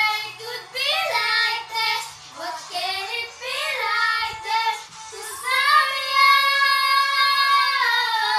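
A young girl singing a melody in short phrases, then holding one long note for the last three seconds or so.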